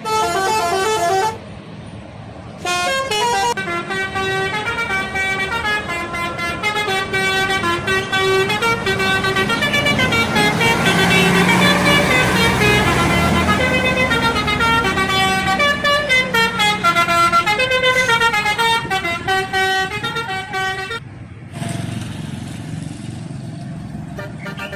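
Bus telolet horn playing a melody of several tones stepping up and down: a short blast at the start, then after a brief pause a long tune of about eighteen seconds that cuts off near the end. The bus's engine noise swells under the horn in the middle.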